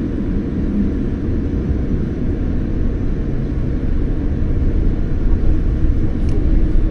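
Steady low rumble of a jet airliner's engines and airframe heard from inside the passenger cabin, growing slightly louder toward the end.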